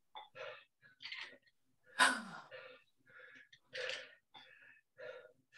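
A person breathing hard in a string of short, forceful exhales during dumbbell rows, with the loudest, a voiced exhale falling in pitch, about two seconds in.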